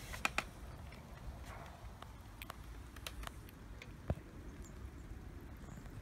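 Faint low background rumble with scattered sharp clicks and taps, a louder knock about four seconds in.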